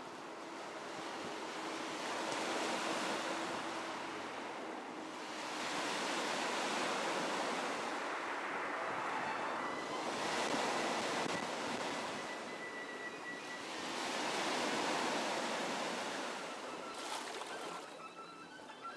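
Sea waves breaking and washing up a pebble beach, the surf swelling and fading about every four seconds.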